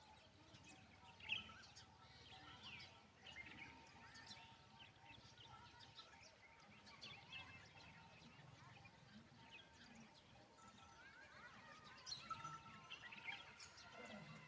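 Faint birdsong: many short chirps and calls from several birds, scattered and overlapping, over a low background hum.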